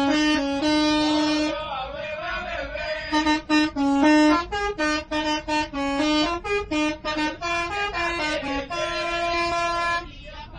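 Bus's multi-tone musical air horn (an Indonesian 'telolet' horn) playing a quick tune of short stepped notes, with a longer held note near the end; it stops about ten seconds in. It is sounded as a greeting between two passing bus drivers.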